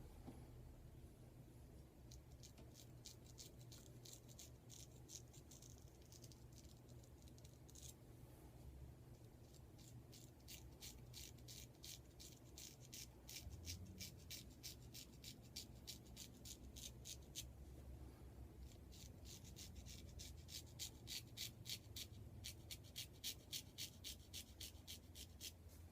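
Straight razor scraping across stubble in quick short strokes, several a second, in three runs with short pauses between. The blade is a vintage Adoration 166 blue steel square-tip, cutting through a lather-less shave cream.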